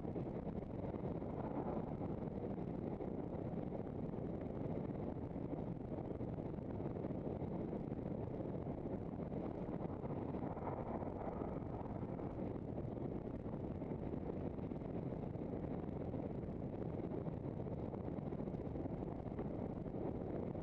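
Steady wind rush on the microphone and road noise from a handcycle riding along a tarmac road, with a car passing in the other direction about ten seconds in.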